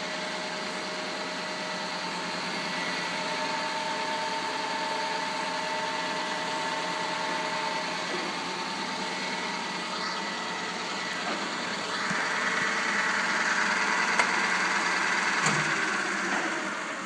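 Vehicle engine running with a steady whining grind; it gets louder about twelve seconds in and eases off again near the end.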